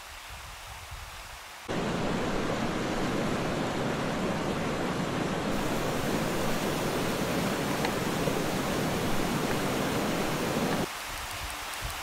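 Rushing river water: a loud, steady hiss that cuts in suddenly about two seconds in and stops abruptly about a second before the end, leaving a fainter stream murmur.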